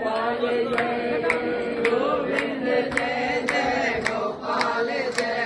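Devotional kirtan: a group chanting a mantra over a held droning tone, with hand cymbals struck in a steady beat about twice a second.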